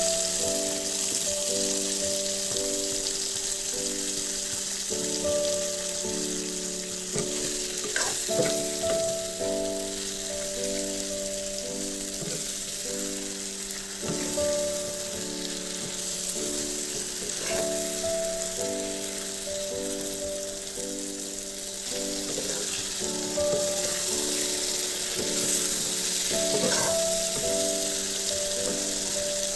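Small river fish, tomato and onion sizzling as they are stir-fried in a wok, with a metal spoon scraping and knocking against the pan a few times. Soft background music of slow held notes plays underneath.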